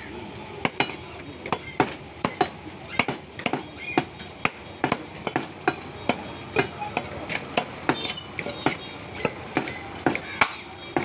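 Heavy butcher's cleaver chopping beef on a wooden log chopping block: a quick, uneven run of sharp chops, about two or three a second.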